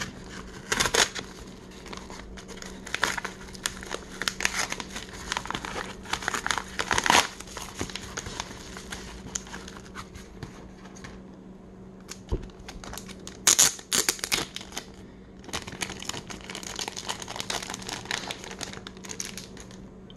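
A paper mailer envelope being torn open and handled, with irregular crinkling and several sharp rips. Near the end comes the crinkling of a clear plastic bag around a baseball card.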